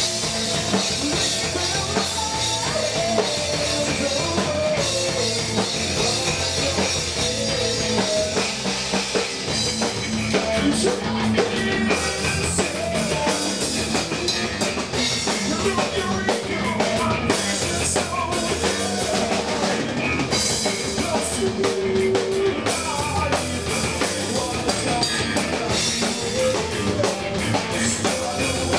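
Live rock band playing loudly and without a break: a drum kit with cymbals and an electric bass.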